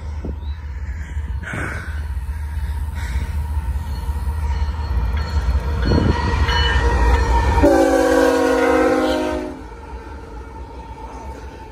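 Approaching BNSF freight diesel locomotives rumbling. The lead unit's horn sounds one long blast of about two seconds near the end, as the locomotives draw alongside.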